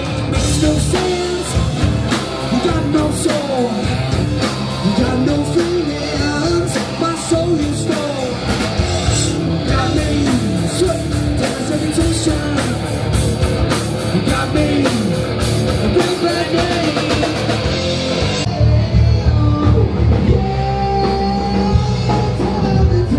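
Live rock band playing loud, with drums, guitars and a lead singer. About eighteen seconds in, the sound turns duller as the treble drops away.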